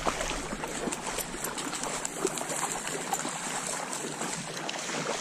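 Shallow marsh water trickling and lapping, with many faint scattered ticks and small splashes.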